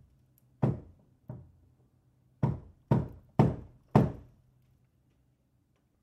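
Banging on a hard surface: six heavy knocks, two spaced apart, then after a pause four in quicker succession, each ringing briefly.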